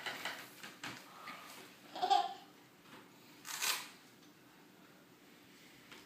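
Faint rustles and clicks as small shoes are fastened on a toddler's feet, with a short high vocal sound from the toddler about two seconds in, then a brief hiss about a second and a half later.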